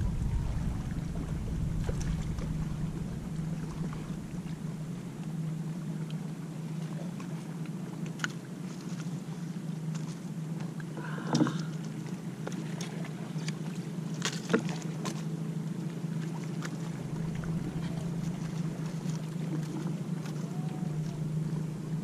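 A steady low engine hum runs throughout, with wind rumble on the microphone that dies away over the first few seconds. Over it come scattered light clicks and a short splash about eleven seconds in, as an Indo-Pacific tarpon is lifted out of the water in a landing net.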